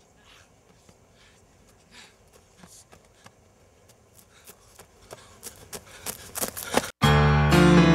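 A run of sharp clicks or knocks that grow louder and come faster. After a brief cut about seven seconds in, loud strummed guitar music starts.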